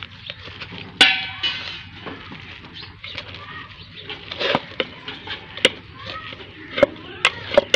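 A hand kneading and mixing a thick ground lentil and spice paste in a steel bowl: soft squishing with repeated sharp clinks against the metal. A brief high call sounds about a second in.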